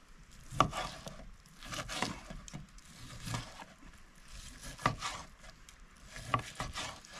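Cooking utensils and dishes being handled: irregular knocks and scrapes, with about five sharper knocks spread through.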